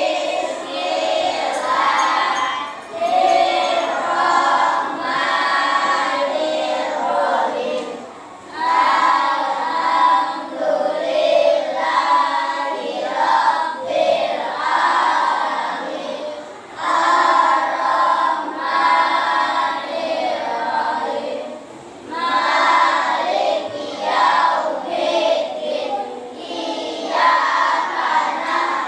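A group of children singing together, in phrases several seconds long with short breaks between them.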